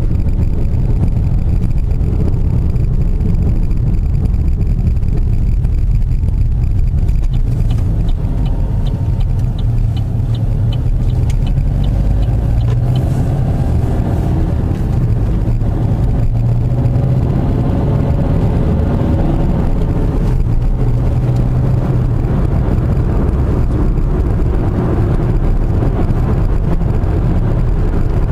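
Car engine running under way, its note rising and falling with the bends, with road and tyre rumble heard from inside the cabin. A light regular ticking, about three a second, comes in for a few seconds about a quarter of the way in.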